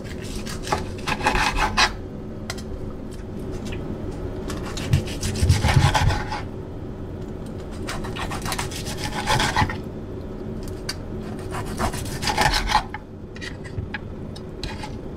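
Chef's knife sawing through crispy-skinned fried pork belly on a wooden cutting board: the crisp skin crunches and rasps under the blade in four bouts a few seconds apart, some ending in a low knock of the blade on the board.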